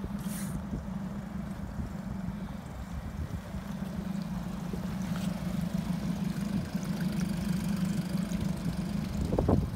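Twin Yamaha outboard motors idling with a steady low hum. Near the end comes a brief, louder sound rising in pitch.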